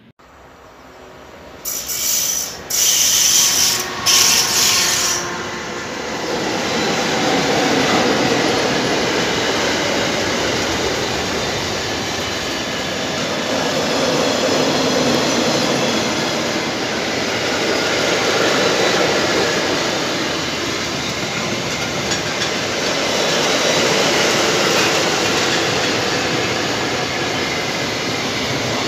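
Freight train of double-deck car-transporter wagons passing at speed: a few loud bursts of high-pitched noise as it arrives, a couple of seconds in, then a steady rumble and rattle of the wagons rolling by that swells and eases every few seconds.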